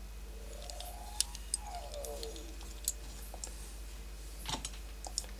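Small diecast metal toy vehicles being handled, giving a few scattered light clicks and taps over a steady low hum.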